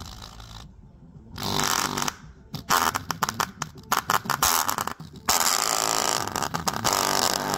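Small full-range speaker driver from an Omaker M4 portable speaker, overdriven by an amplifier, blasting rasping, distorted sound in choppy bursts, then steadily from about five seconds in. Its voice coil is already damaged and burning from the overload.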